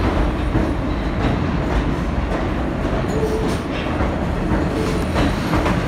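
New York City subway train running past the platform: a loud, steady rumble of steel wheels on rails with repeated clicks over the rail joints and a few short, faint wheel squeals.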